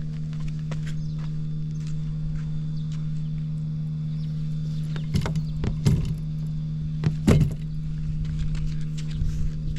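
Honda Cabina 50 scooter's small two-stroke single-cylinder engine idling steadily, with a few sharp knocks about five, six and seven seconds in.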